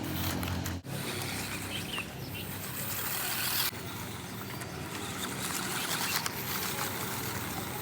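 Radio-controlled rock crawler toy truck driving over rough ground: its small electric motor and gears run with a continuous noisy whir, after background music cuts off about a second in.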